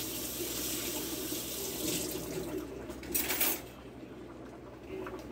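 Kitchen tap running water steadily, splashing louder briefly about three seconds in, then shut off.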